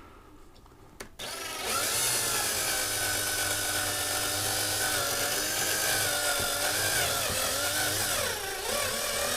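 Small electric power drill whining steadily as it drills out the rivet of a diecast Matchbox truck. It starts about a second in, and its pitch sags briefly near the end as the bit loads up.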